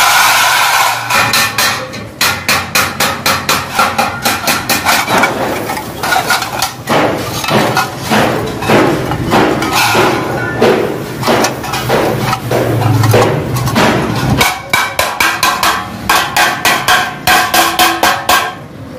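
Rapid, even hammer blows on sheet metal, about four a second, with a few short breaks.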